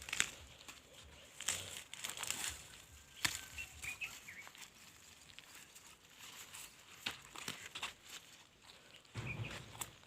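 Dry maize plants rustling and crackling in irregular handfuls as cobs are picked by hand, with a few faint bird chirps.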